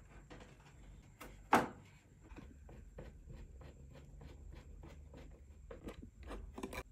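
A run of small clicks and taps from handwork on a wooden clock case with a screwdriver and small parts, several a second, with one sharp knock about a second and a half in.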